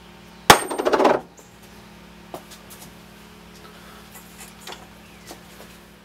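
Thick aluminium disc, about five inches across, set down hard on a wooden workbench: one loud knock about half a second in, then a quick rattle that dies away within a second as it settles. A few faint ticks follow over a steady low hum.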